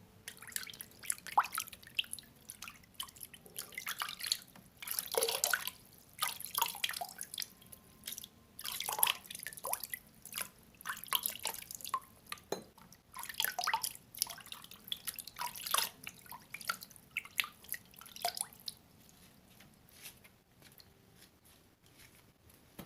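Water from a bucket splashing and dripping in irregular bursts, with short quieter gaps between them, dying down near the end.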